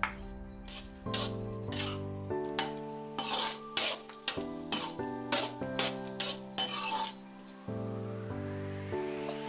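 Spatula scraping and knocking against a metal karahi as minced meat is stirred while its water cooks off, in quick irregular strokes that are busiest in the middle and stop near the end. Background music plays throughout.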